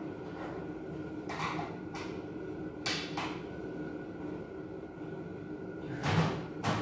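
Scattered light knocks and scrapes of sheet-metal cabinet parts being handled during assembly of a Kobalt steel cabinet: a few clanks about a second and a half in, a pair around three seconds, and a louder pair near the end, over a steady hum.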